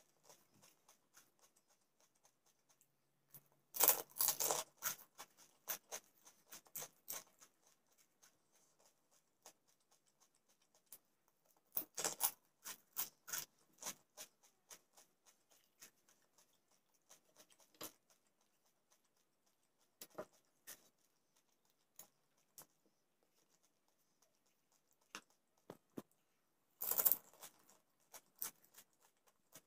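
Close-up eating of golgappa (pani puri): three louder bursts of crisp puri shells crunching as they are bitten, a few seconds in, around the middle and near the end, with soft chewing clicks in between.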